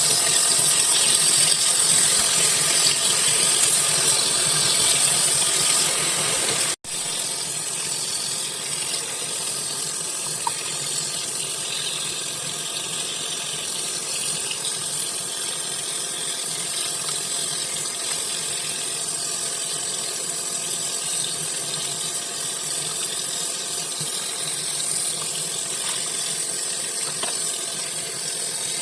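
Steady rush of running water. It cuts out for an instant about seven seconds in and resumes a little quieter.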